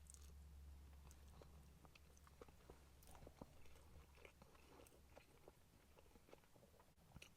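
Faint chewing of a burger, with small irregular wet mouth clicks, over a low steady hum that fades about halfway through.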